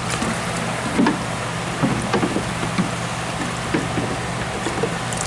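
Steady low machine hum under a wash of noise, with scattered short knocks and clatter.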